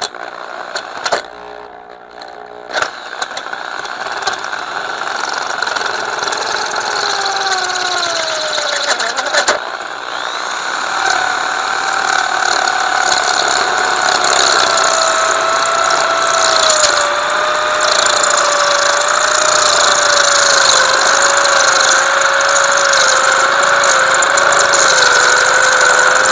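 Handheld corded electric drill boring out a stripped bar-stud hole in a chainsaw's aluminium crankcase. The motor runs with a steady whine whose pitch slowly falls, easing off briefly about ten seconds in before carrying on.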